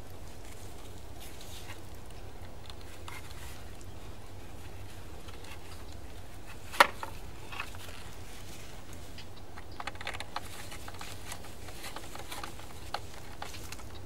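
Scattered small clicks and taps of a screwdriver and wire being worked into the screw terminals of a Hunter irrigation controller, with one sharp click about halfway through and a quick run of ticks a few seconds later.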